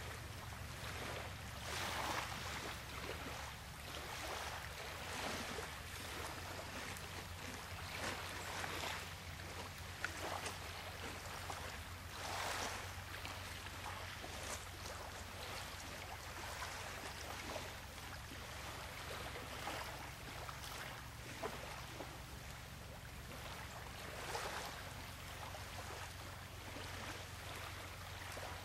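Waves washing on a shore, the wash swelling and fading every couple of seconds, over a steady low hum.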